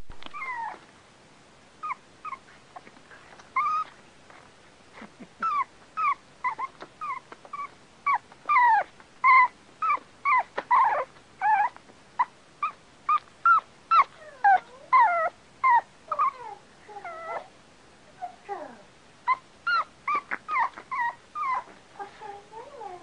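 Dog whining and crying: a rapid string of short, high-pitched whimpers and cries, many sliding down in pitch, several a second with only brief pauses.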